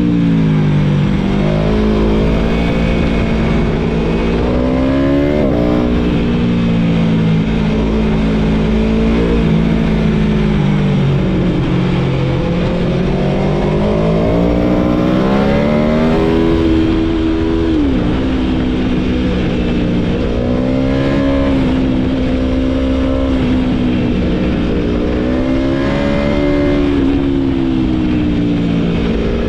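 Aprilia Tuono V4 motorcycle engine pulling hard and easing off through the gears, its pitch repeatedly climbing and falling, with sharp drops at upshifts about 5 and 18 seconds in, over a steady low rumble.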